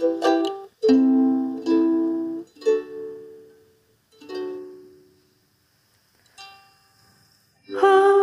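Slow acoustic plucked-string chords from a karaoke backing track. Each chord rings and fades, the last few growing softer, and there is a near-silent gap before a woman's voice begins singing near the end.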